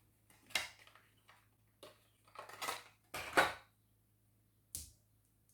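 Small plastic toy pieces and packaging being handled: a few short clicks and rustles at irregular intervals, the loudest about three and a half seconds in.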